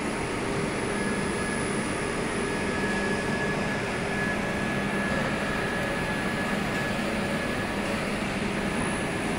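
Textile-tape rewinder running continuously, a steady machine hum and whir as the tape is drawn over its rollers and guide pulleys, with a faint thin whine from about a second in until near the end.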